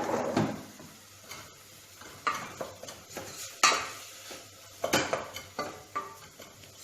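A spoon stirring onions and spices in a cooking pot, scraping and knocking against the pot with several sharp clinks spread through.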